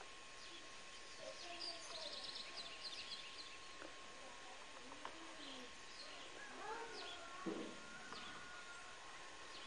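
Faint scattered bird chirps and short calls, with a brief rapid trill about two seconds in, over a low steady hiss.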